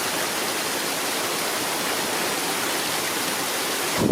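Heavy thunderstorm downpour: a steady, even rush of wind-driven rain.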